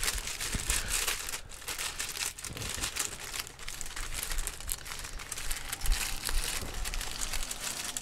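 Wax paper crinkling and crumpling as it is wrapped and pressed by hand around a steering wheel rim freshly packed with body filler. It makes a continuous fine crackle.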